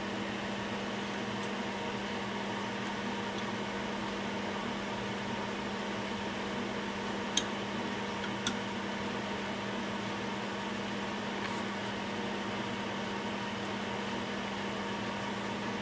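Steady machine hum with hiss, like a small fan running, with two short sharp clicks about seven and eight and a half seconds in, such as metal tweezers or a soldering iron tip touching the board.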